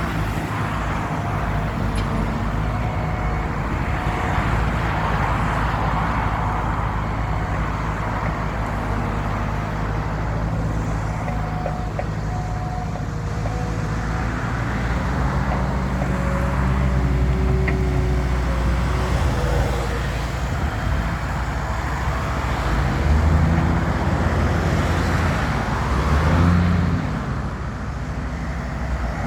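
Skid steer loader engine running steadily, working harder for a few seconds at a time in the second half.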